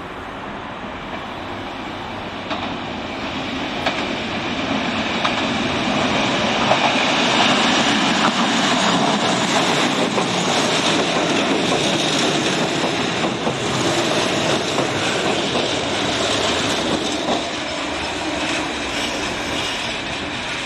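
Red Meitetsu Seto Line electric commuter train passing close by, growing louder over several seconds to a peak, its wheels clattering over rail joints.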